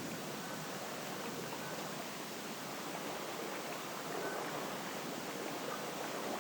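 Steady, even outdoor rushing noise, with a few faint, short, high tones scattered through it.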